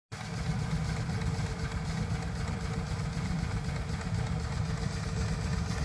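Old marine steam engine running steadily: a low, even sound with a faint steady tone above it.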